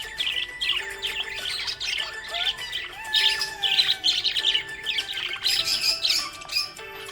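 Several budgies chirping and warbling in a rapid, continuous chatter, the busy, contented sound of happy pet budgerigars.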